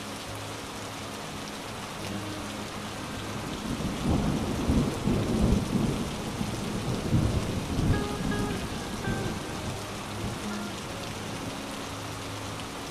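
Heavy rain pouring steadily on a street. A low rumble of thunder swells about four seconds in and dies away by about eight seconds.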